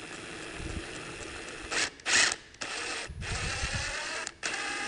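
Cordless impact wrench with a large socket running on the springer fork's stem nut (the king nut) to spin it off. It runs steadily for almost two seconds, gives two short louder bursts around two seconds in, then runs in three more spurts, with the trigger let off briefly between them.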